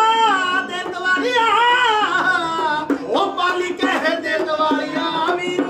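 A man singing a Punjabi folk song solo in a high, heavily ornamented voice with long wavering notes. Under the voice he keeps a steady beat of short twanging strokes on a small hand-held instrument he strikes. The voice pauses briefly a little past two seconds in, then comes back on a rising glide.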